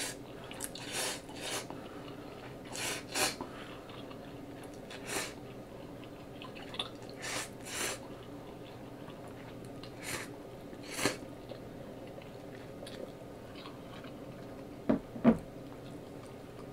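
A person slurping instant ramen noodles from chopsticks: about ten short wet slurps in clusters over the first eleven seconds, with quieter chewing between and after them. Two short, louder sounds come close together about fifteen seconds in.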